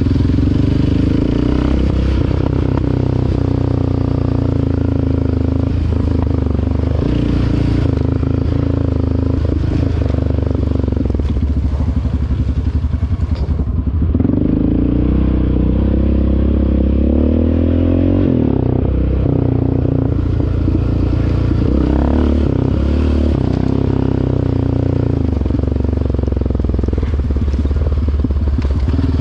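ATV engine running on the trail, its pitch rising and falling as the throttle is worked, most clearly around the middle. There are a few sharp knocks along the way.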